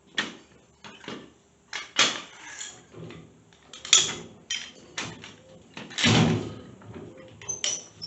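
Irregular metal clanks and clicks from a high-lift jack being set and worked under a mower. There are about a dozen sharp knocks at uneven spacing, the heaviest a clattering clank about 6 s in.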